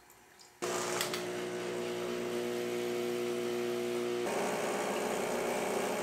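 Vibratory pump of a Rancilio Silvia Pro espresso machine's steam boiler kicking in, refilling the drained boiler, with a steady electric buzz of evenly spaced tones. It starts suddenly about half a second in, and about four seconds in it turns rougher and a little louder. The machine's panels are lined with sound-deadening sheets.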